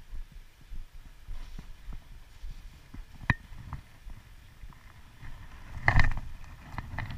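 Spinning reel being cranked on a light trout rod, a low mechanical grinding mixed with handling rumble, with a sharp click about three seconds in and a louder clack about six seconds in.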